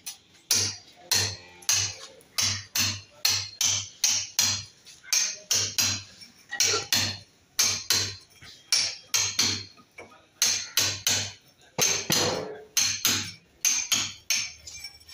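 Club hammer striking a steel cold chisel to cut a channel for water pipe into a plastered wall: a long run of sharp blows, about two to three a second, with short pauses between runs.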